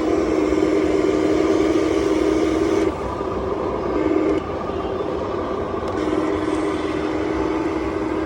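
Remote-controlled construction machine running with a steady pitched hum over a rumble. The hum drops out about three seconds in, comes back briefly, then returns for good about six seconds in, as the machine's load changes.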